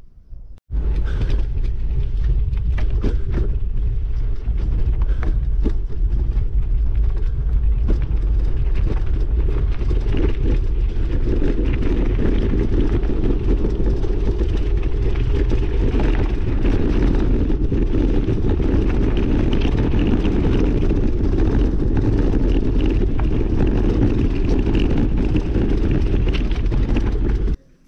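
Loud, steady rumble of travel along a gravel dirt track, with wind buffeting the microphone. It starts suddenly just after the beginning and cuts off suddenly near the end.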